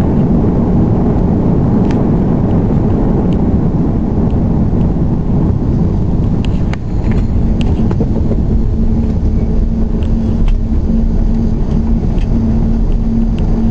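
Cabin noise of an Airbus A330-200 rolling out on the runway after touchdown: a loud, steady rumble from the engines and the wheels. About halfway through the rumble eases a little and a steady hum comes in, with small rattling clicks from the cabin fittings.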